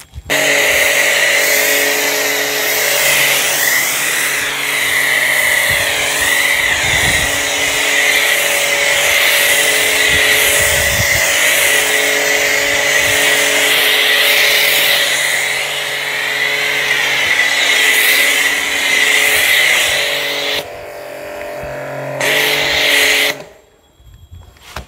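Starq AWP 2.8 pressure washer with a foam cannon spraying car-wash foam: a loud hiss of spray over a steady motor hum. It dips about twenty seconds in, sprays again for about a second, then cuts off near the end.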